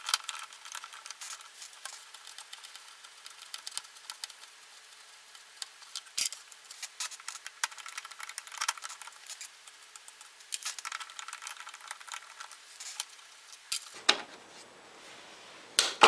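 Light, scattered metallic clicks and rattles as hands work loose the parts of a MIG welder's wire-feed drive.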